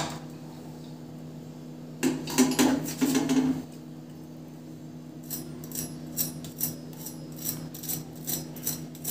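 Fork and fingers on crisp double-fried vegetable Manchurian balls on a plate: a clatter about two seconds in, then a run of light, irregular crackling clicks in the last few seconds as a ball's crust is pressed and broken open.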